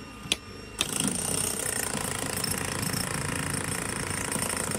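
Two sharp knocks in the first second, then a steady, dense mechanical rumble like an engine or powered machine running.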